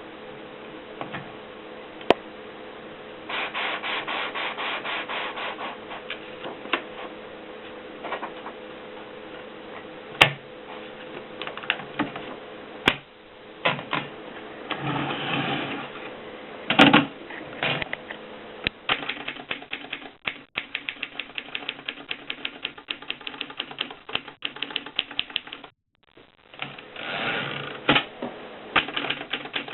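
A 1930s Mercedes Prima typewriter being typed on: quick runs of sharp key-and-typebar clacks, broken by a few single louder strikes. Twice, about halfway through and again near the end, there is a longer rasping mechanical burst.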